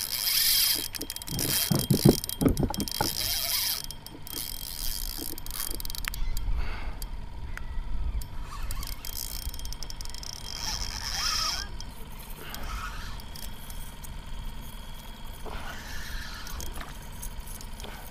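Spinning reel worked in bursts of mechanical whirring while fighting a hooked jack crevalle, with water lapping around the kayak.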